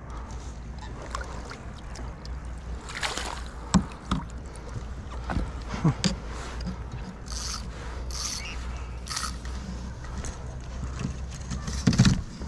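Handling noise as a redfin is netted and lifted aboard a plastic kayak: knocks and scrapes of the landing net, rod and hands against the hull. There are sharp clicks about four and six seconds in, short scraping rustles a little later, and a loud knock near the end.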